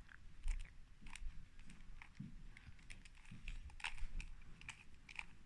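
Plastic clicking and clacking of a 2x2 Rubik's cube as its layers are twisted by hand: short, irregular clicks, about two or three a second.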